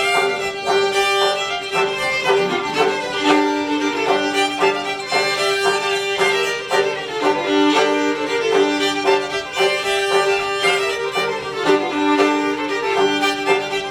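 Fiddle playing an old-time tune melody over plucked banjo notes in a live acoustic string band, with no singing.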